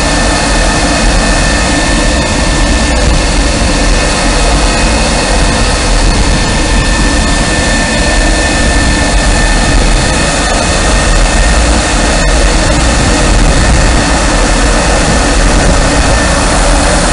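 Jet fighter's engines running steadily: a loud, even rushing noise with several steady high whining tones.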